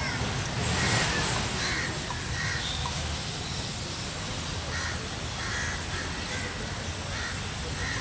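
Crows cawing repeatedly in short harsh calls at irregular intervals over steady outdoor background noise, with a short rush of noise about a second in.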